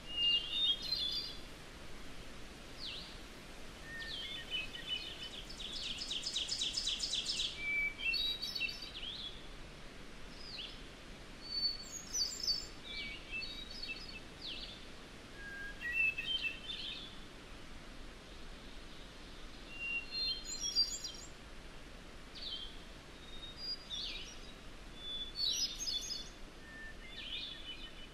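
Wild birds singing in a field recording: short chirped and whistled phrases coming every second or two, with a rapid buzzy trill about six seconds in, over a faint steady hiss.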